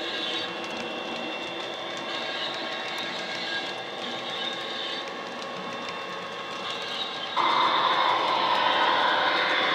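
Model Class 57 diesel's DCC sound decoder playing its engine sound through the loco's on-board speakers as it runs past with its coaches, over the rolling of the wheels on the track. About seven seconds in, the sound jumps louder and brighter, then holds steady.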